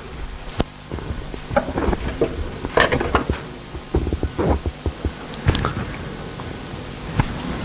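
Classroom handling noise: scattered taps, knocks and rustles of people moving and handling things, irregular and with no steady rhythm.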